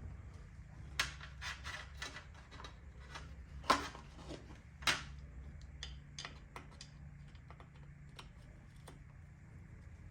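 Scattered clicks and light metal clinks of hand tools and small engine parts being handled during a two-stroke engine teardown, irregular and sharp, with three louder knocks in the first half.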